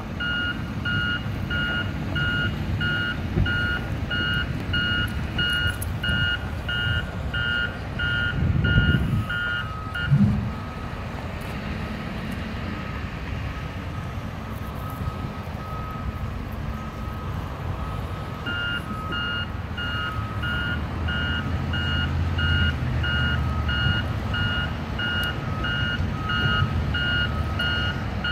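Construction vehicle's reversing alarm beeping about two times a second over a steady diesel engine rumble. The beeping stops about ten seconds in and starts again near the end. Two loud thumps come around nine and ten seconds in.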